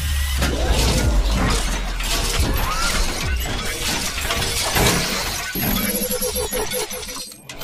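Logo-intro sound effects: a dense run of shattering, crashing noise over a deep low rumble, with a pitched hum taking over near the end.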